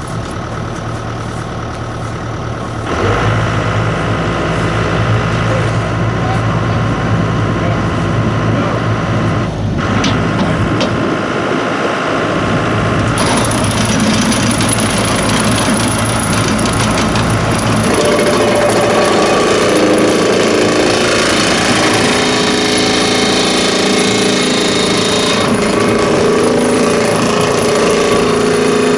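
A hydraulic excavator's diesel engine runs and revs up about three seconds in. In the second half a vibratory pile-driving hammer on its boom drives a steel sheet-pile panel into the ground, adding a steady, louder hum.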